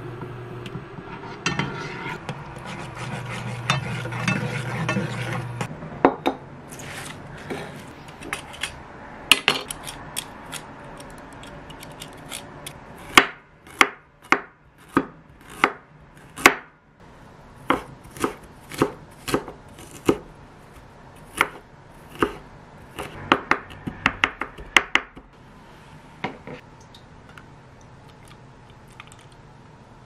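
A kitchen knife chopping food finely on a wooden cutting board: sharp, irregular strikes, one to two a second, that stop a few seconds before the end. Before the chopping starts, about six seconds of a steady low hum.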